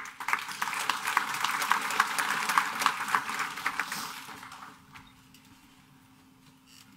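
Audience applauding: a dense patter of many hand claps that starts right away, holds for a few seconds and dies away about four and a half seconds in.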